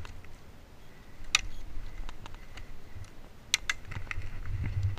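Scattered sharp clicks and snaps: a loud one about a second in, two more in quick succession a little past three and a half seconds, and fainter ones between, over a low rumble.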